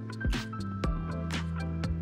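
Background music with a steady beat: regular drum hits over a held bass line that changes note and higher sustained melody notes.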